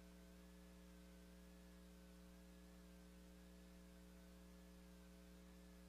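Near silence: a steady low hum, with a faint wavering high tone above it.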